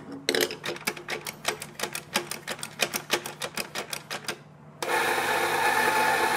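Anfim doser grinder's doser lever flicked over and over, a rapid run of sharp clicks about seven a second as grounds drop into the portafilter. Near the end the grinder motor starts up and runs steadily, grinding beans.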